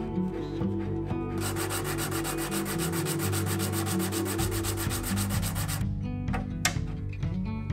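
A small brass butt hinge leaf rubbed back and forth on sandpaper laid flat on a bench, flattening the leaf's back where its screw holes were punched through: quick, even scratchy strokes that start about a second and a half in and stop about four seconds later. Background music plays throughout.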